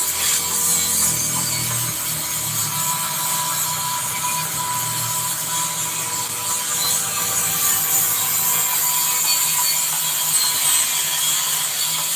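Steady scraping and rubbing noise of tool work in a metal fabrication shop, with a faint steady high whine.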